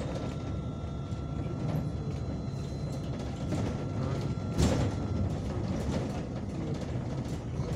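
Cabin sound of a MAZ-215 city bus on the move: a steady engine and road rumble with a faint high whine over it, and a single sharp knock about four and a half seconds in.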